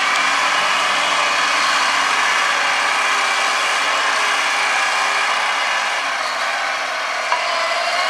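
John Deere crawler tractor running steadily under load as it pulls a seven-furrow fully mounted plough through the field, engine and tracks together as one even noise. A single sharp click comes near the end.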